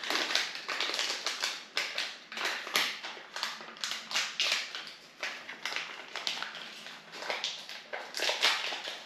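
Small sachet of instant lemon tea being handled and opened by hand: its packaging crinkles and crackles in a fast, irregular run.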